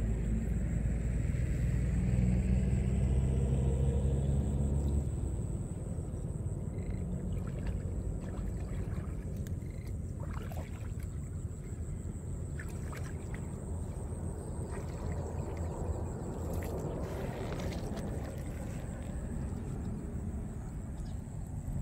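A motor running with a low, steady hum that stops about five seconds in, then shallow water splashing and sloshing as a gill net is hauled and handled by someone wading.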